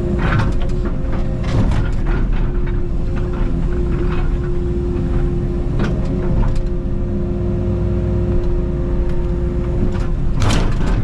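Takeuchi TB290 mini excavator's diesel engine running steadily under hydraulic load while the bucket works rock and dirt, with scattered knocks and a louder clattering burst near the end.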